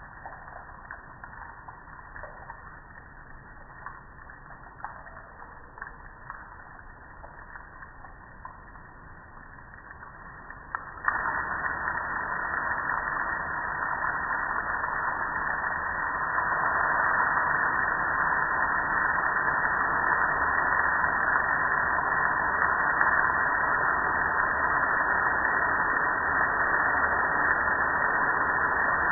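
Garden hose spray nozzle on its shower setting spraying water onto a soapy metal gas grill. The spray starts abruptly about eleven seconds in and gets louder some five seconds later, then holds steady; before it, only faint drips and small ticks.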